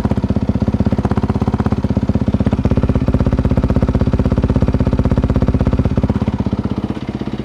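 Yamaha YZ250FX single-cylinder four-stroke engine idling steadily through an Akrapovic slip-on exhaust, a fast even run of exhaust pulses that eases slightly near the end.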